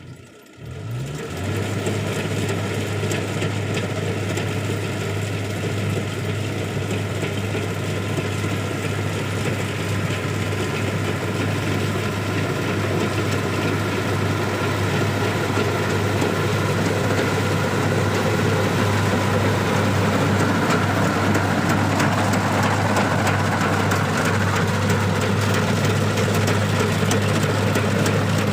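Kubota DC-60 rice combine harvester running: a steady low engine hum under dense mechanical noise. It comes in about a second in and grows slightly louder.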